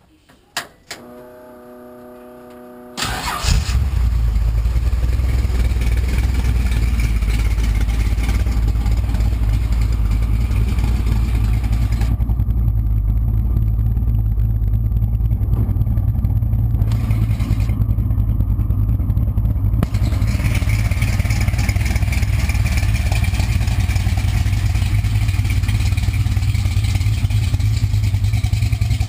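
Drag car's 355 cubic-inch small-block Chevy V8 with Flowmaster mufflers being started: a couple of clicks and a short whir, then it fires about three seconds in and settles into a loud, steady idle.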